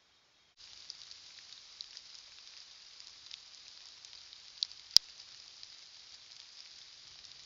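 Steady high hiss with faint scattered crackles, the self-noise of a game camera's microphone, starting abruptly about half a second in; two sharp clicks stand out about five seconds in.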